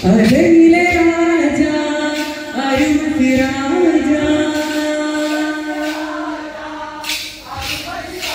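Kolkali song: a voice singing long held notes that slide from one pitch to the next, then a few sharp clacks of the dancers' wooden sticks near the end.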